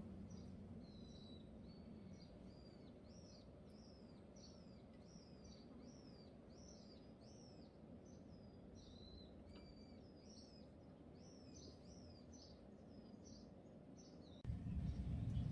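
A small bird chirping steadily, about two short arched notes a second, faint over a low hum. Near the end a louder low rumble cuts in suddenly.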